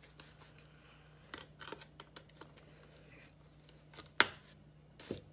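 Screwdriver backing small screws out of a taillight lens: scattered faint clicks and scrapes, with one sharp click about four seconds in.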